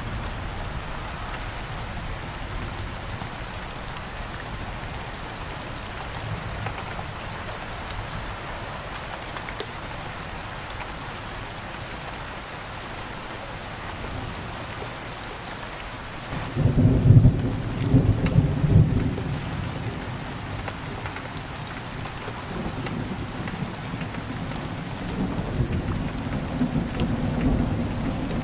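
Steady heavy rain falling on a window pane, with a low roll of thunder breaking in about two-thirds of the way through, loudest for about three seconds, and a fainter rumble of thunder again near the end.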